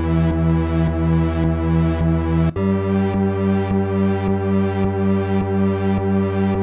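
Roland PROMARS synthesizer preset playing sustained, pitched tones that pulse at an even rate. About two and a half seconds in it breaks off briefly and changes to a different sound with a somewhat quicker pulse.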